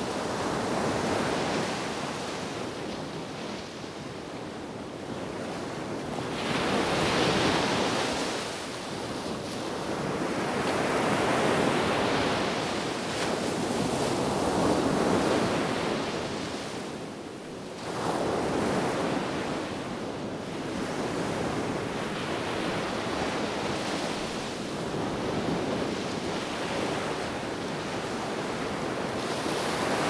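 Sea waves breaking and washing up a sandy beach, one rushing surge after another every few seconds, each swelling and ebbing away.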